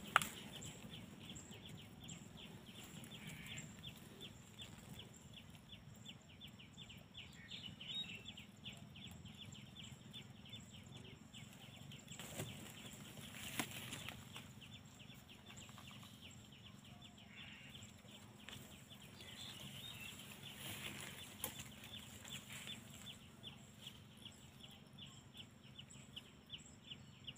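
A chicken clucking faintly now and then, over a steady fast ticking.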